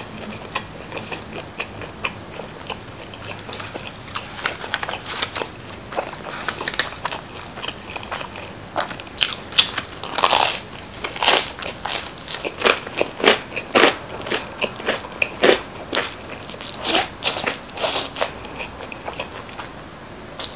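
Biting and chewing of a crispy deep-dish pizza crust: a run of sharp crunches and crackles. The crunching is sparse for the first few seconds, then comes thick and loud, with the biggest bites from about ten seconds in.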